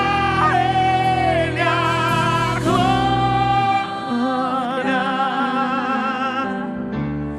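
Gospel worship singing: a voice holds long notes with vibrato, one after another, over steady instrumental backing.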